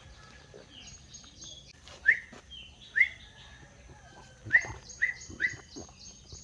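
Bird chirping: five short, sharp chirps, the loudest sounds here, over a faint, rapid, higher-pitched twittering.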